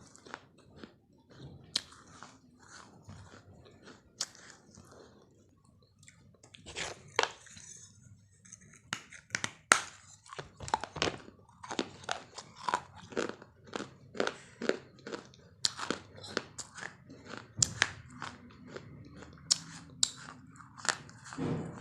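Crunchy food being chewed and bitten close to the microphone: a run of sharp, irregular crunches that come thicker from about halfway through.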